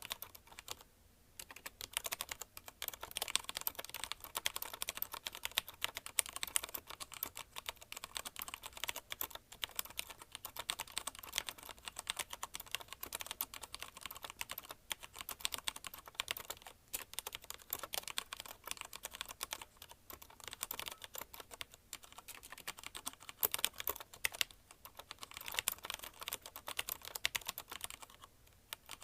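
Fast touch-typing on a mechanical keyboard with linear Cherry MX Red switches (CM Storm Quick Fire TK): a dense run of key clacks with short pauses about a second in and a few times later on.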